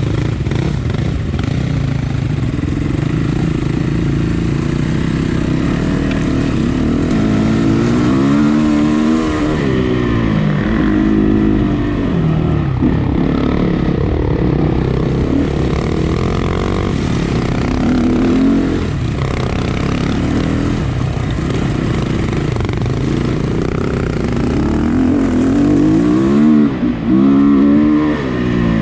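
Off-road motorcycle engine running under load with the throttle opened and closed again and again, its pitch rising and falling, with the sharpest revving about eight seconds in and again near the end.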